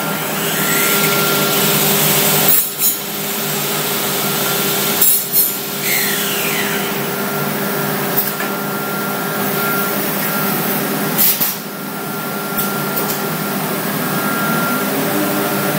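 Homag CNC machine cutting PVC: a steady whine from the running spindle, with several short louder bursts as the cutter bites into the material.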